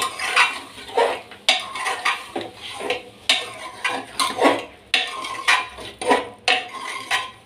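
A metal spatula scraping and knocking against the inside of an aluminium pressure cooker while stirring mutton liver pieces frying with ginger-garlic paste. The strokes come about twice a second, some with a brief metallic ring.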